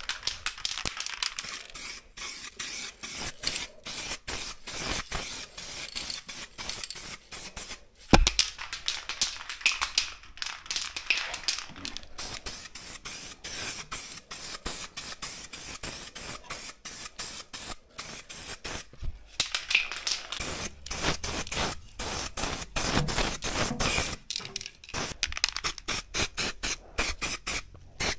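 Aerosol spray can of primer hissing in many short bursts as it is sprayed onto bare sanded metal. There is a single sharp knock about eight seconds in.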